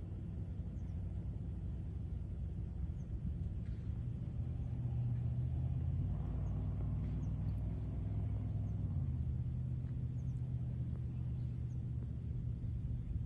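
A motor vehicle engine idling steadily, a low hum that swells slightly about four seconds in.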